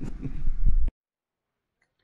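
A low rumble of microphone handling noise with a faint, muffled voice, cut off abruptly just under a second in. Dead silence follows: the recording stops at a cut between clips.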